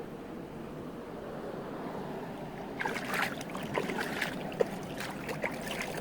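Flowing stream water rushing steadily, with sharper splashing and gurgling starting about halfway through.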